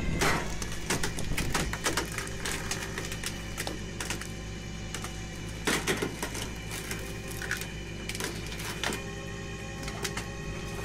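Machinery clattering with many sharp clicks and knocks over a steady hum; the loudest knocks come at the very start and about six seconds in.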